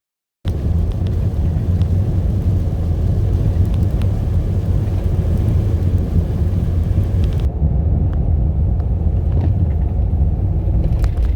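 Steady, loud low rumbling noise that starts abruptly just after the opening and runs on without pause; its high hiss drops away about seven and a half seconds in.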